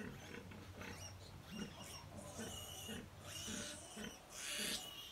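A nursing sow grunting in an even rhythm, about two low grunts a second, while her piglets squeal and squabble at the teats. The loudest outburst of piglet squealing comes near the end.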